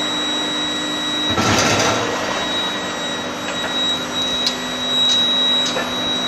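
Induction heating line running, a steady high-pitched whine over a lower hum. A short noisy rush comes about a second and a half in, with a few light clicks later.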